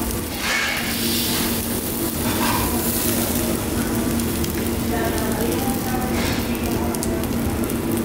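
Meat sizzling on a gas-fired yakiniku grill grate: a steady hiss that swells louder about half a second in, near three seconds and again around six seconds, with a low steady hum underneath.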